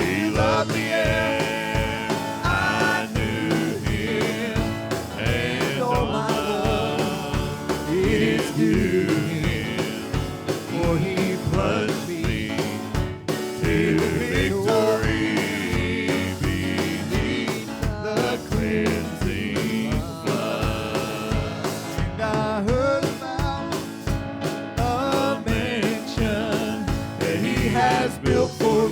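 Live gospel worship music: a band playing with a steady drum beat, with a singing voice over it.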